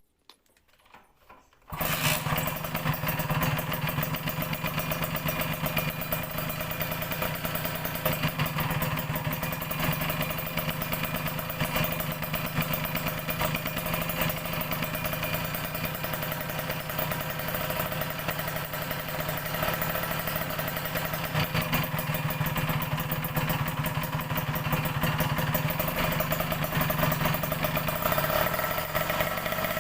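Kawasaki Ninja R's 150 cc two-stroke single-cylinder engine idling steadily, coming in about two seconds in. It is being run after its reed valve was serviced to cure bogging and rough running at low revs.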